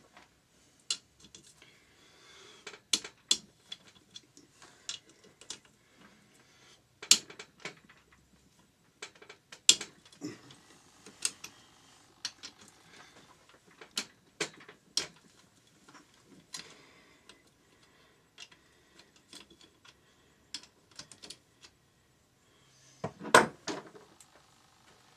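Irregular metal clinks and clanks of hand tools and engine parts being handled while a Yamaha XT600 engine is taken apart, with the loudest cluster of knocks near the end.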